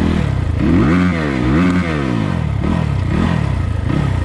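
SSR SR300 dirt bike's single-cylinder four-stroke engine, fed by a newly fitted Lectron carburetor, revving up and dropping back twice, then several shorter, smaller blips. It picks up cleanly each time, with no bog.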